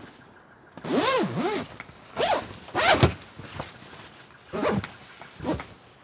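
A zipper pulled in five quick strokes, a longer one about a second in and shorter ones after, each sweeping up and down in pitch as it runs.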